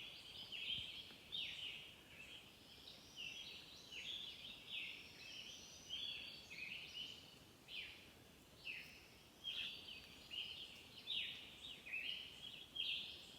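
Songbirds singing in the pre-dawn chorus: a steady run of short, high, falling notes, several a second, overlapping throughout.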